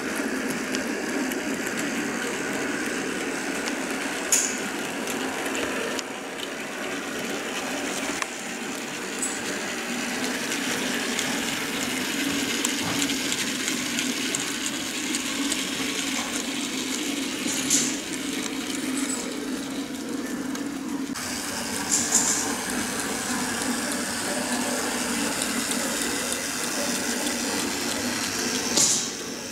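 OO-gauge model diesel shunter and its freight wagons running along the layout's track: a steady rumbling whirr of motor and wheels on rail, with a few sharp clicks.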